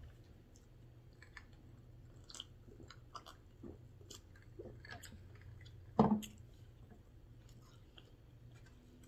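A person chewing food close to the microphone, with small wet mouth clicks scattered through. One louder knock about six seconds in, over a low steady hum.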